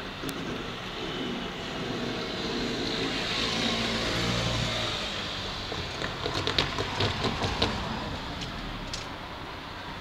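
Keikyu electric train running on the line, a hum with pitched motor tones that swells and then fades. About six to eight seconds in come a rapid series of sharp wheel clacks over rail joints.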